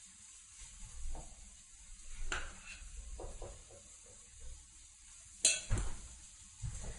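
A spoon scraping and tapping as roasted squash is scooped from a glass bowl into a food processor, with a few soft knocks. A sharper clank comes about five and a half seconds in.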